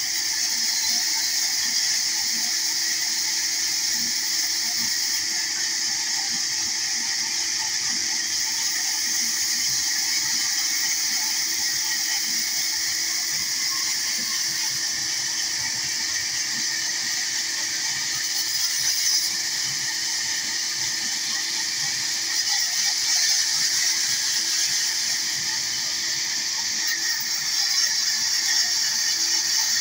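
Large vertical band saw running and ripping a wooden plank fed through its blade: a steady high hiss over a constant low hum, swelling slightly louder a few times in the second half.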